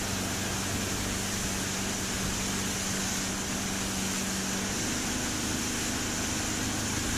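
Yamaha outboard motor running at cruising speed, pushing a fishing boat across choppy water, with a steady rush of wind and water along the hull. The engine's steady hum changes pitch about five seconds in.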